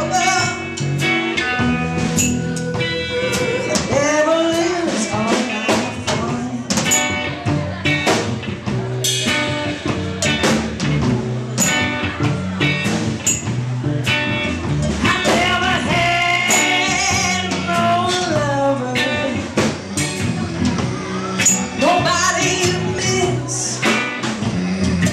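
Live blues band: a woman singing lead over electric guitar, upright bass and drums, with regular drum hits.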